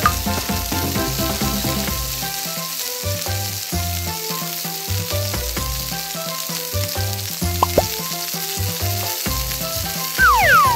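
A steady frying sizzle sound effect, a continuous hiss, laid under light background music with a stepped melody. A few brief sliding tones cut through, one about two-thirds of the way in and a falling pair near the end.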